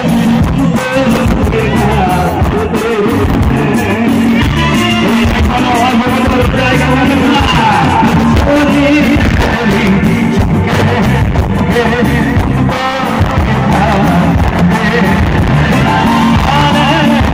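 Loud live stage music with a singer and band, steady and unbroken.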